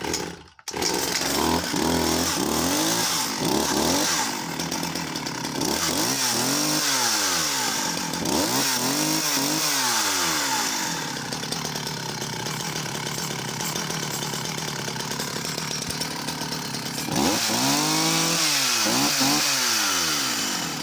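Dolmar 111 two-stroke chainsaw engine running after a cold start, catching about a second in. It is revved up and down several times, with steadier idling in the middle. This is a stone-cold start after about three weeks unused, with no priming, the choke just taken off.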